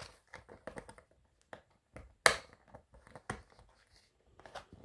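A small dog chewing and gnawing a plastic Vimto bottle: irregular crackles and clicks of the plastic, with one sharper crack about two seconds in.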